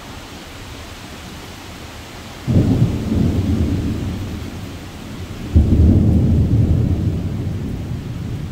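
Thunderstorm: a steady wash of rain and wind, broken twice by a sudden low rumble about three seconds apart. Each rumble fades away over a couple of seconds.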